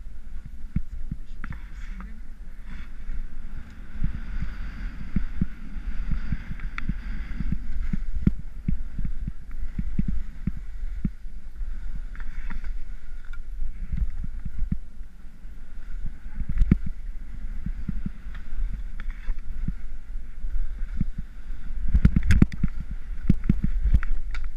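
Rossignol Sin 7 skis scraping and skidding over packed snow through turns, with a low rumble and many knocks as the skis chatter over bumps. The loudest cluster of knocks comes near the end.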